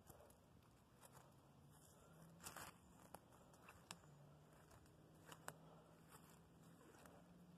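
Near silence: faint outdoor background with a low steady hum and a scattering of faint, irregular clicks and crunches.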